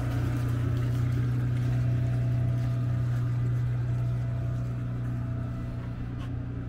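Westerbeke 7.2 kW gasoline marine generator running steadily at its fixed 3,600 RPM, an even low hum. It is healthy on its first start of the season, with full cooling-water flow.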